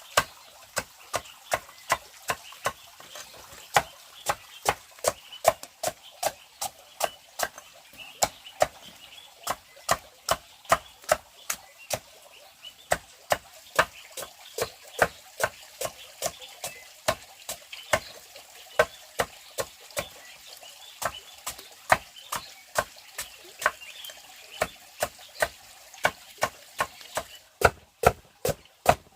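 A blade chopping steadily, about two sharp strokes a second, onto wood.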